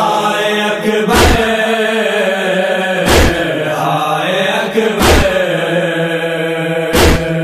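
Opening of a noha: a sustained hummed vocal drone with a wordless, wavering voice above it, and a deep, heavy beat about every two seconds, four times.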